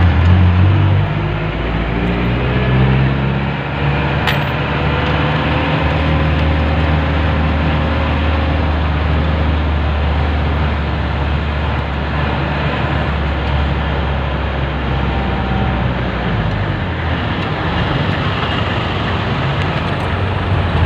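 Jeepney's diesel engine heard from on board, revving up as the vehicle gathers speed over the first few seconds, then droning steadily at cruise under road and traffic noise. A single sharp click about four seconds in.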